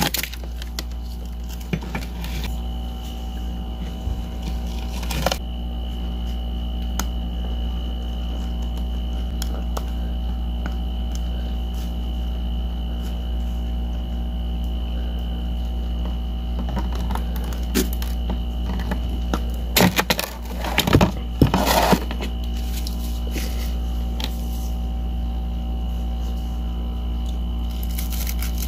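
Hollow balloon ice shell handled in gloved hands: scattered light clicks and ticks of ice, with a short run of loud cracking and crunching about two-thirds of the way through. Underneath runs a steady low hum with a faint high tone.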